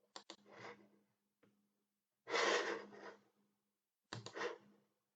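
A person's breath close to the microphone, one long exhale in the middle, with a couple of sharp computer clicks near the start and again about four seconds in, over a faint steady low hum.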